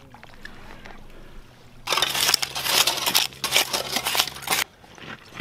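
Stones and gravel crunching and scraping as a hand tool digs into a rocky beach for clams. The dense crunching starts about two seconds in and cuts off abruptly near the end.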